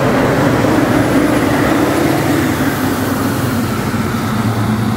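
Large farm tractor's diesel engine running steadily with an even drone.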